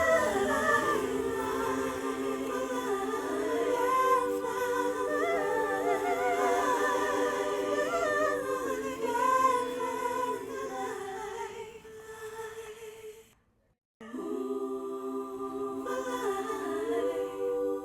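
Intro music of layered voices singing and humming a cappella, with no instruments. It fades out about two-thirds of the way through, stops for a moment, then starts again abruptly.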